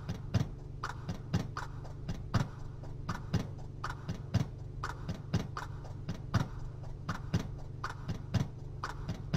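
A clock ticking steadily, a louder tick about once a second with softer ticks between, over a low steady hum.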